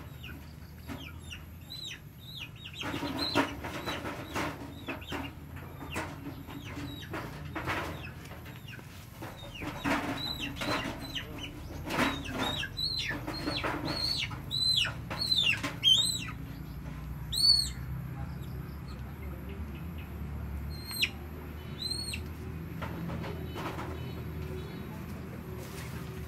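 A trapped chicken squawking over and over as it is grabbed and pulled out of a pit trap. The sharp calls are thickest in the middle, mixed with wing flapping and scuffling in dirt and leaves.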